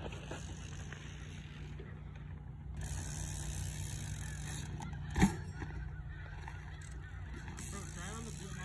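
Mountain bike tyres rolling over a dirt pump track, with one short, loud honk-like call about five seconds in and fainter calls near the end.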